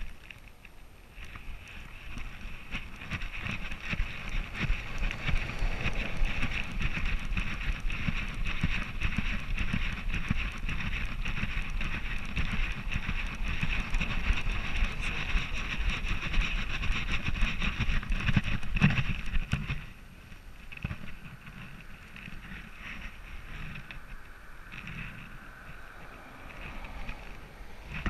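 Rubbing, knocking and wind on a dog-harness camera's microphone as the border collie moves, a steady crackly noise that drops off sharply about twenty seconds in.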